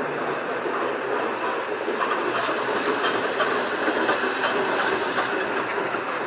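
Perley Thomas-built New Orleans streetcar rolling past on its rails: a steady running noise of steel wheels on track with faint clicking, a little louder in the middle as the car goes by.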